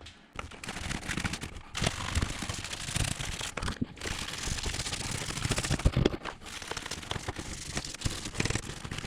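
Scrubbing baked-on grime off dishwasher door parts with soapy detergent: a dense, scratchy crackle with a brief pause about four seconds in.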